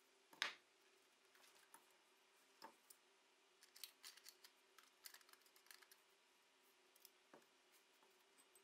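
Light metallic clicks and knocks from an antique shotgun's stock and lock parts being handled and turned over in gloved hands, with a sharper knock about half a second in and a run of quick clicks around the middle.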